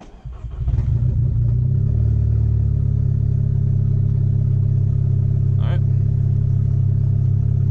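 The MK6 Golf R's built, big-turbo 2.0 TSI four-cylinder starting up and settling into a steady idle, with fresh cam adjuster, N205 cam solenoid, timing chain and tensioner.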